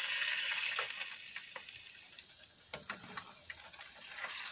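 Gulab jamun deep-frying in hot oil: a steady sizzle that eases after about a second and a half, with a few light clicks of a slotted spatula against the pan as the balls are lifted out.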